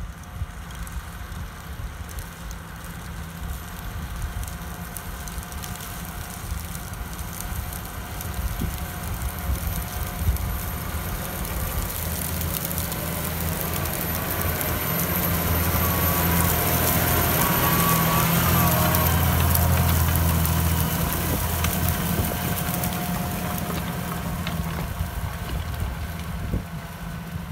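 New Holland tractor's diesel engine running steadily as it pulls a KUHN tillage implement through stubble, growing louder as it passes close by in the middle and fading as it moves away.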